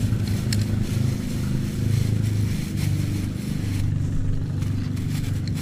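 A motor engine running steadily with a low, even hum, over light plastic-bag rustling and a few small scrapes.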